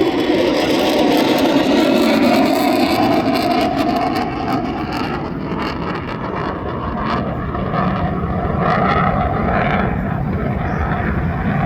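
Loud, steady jet noise from a US Navy F-35C's single Pratt & Whitney F135 afterburning turbofan during a flying display, its pitch drifting slowly as the jet moves.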